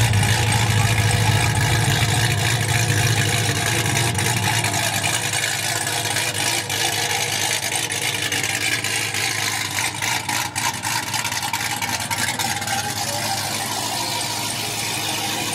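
Cadillac CTS-V's V8 idling through its exhaust with a loud, steady low rumble, easing off a little about five seconds in.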